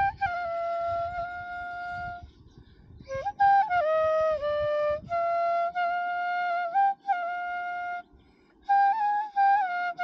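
Bamboo side-blown flute playing a slow melody of long held notes with small slides between them, breaking off briefly twice.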